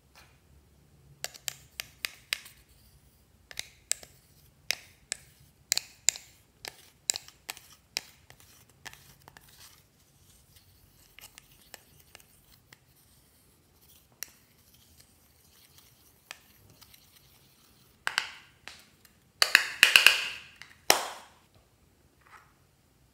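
Pressed eyeshadow being crushed and scraped in its compact with a utensil: a quick run of sharp crunching clicks, thinning out after about ten seconds. Near the end come several louder rasping scrapes as the crumbled powder is scraped out into a glass dish.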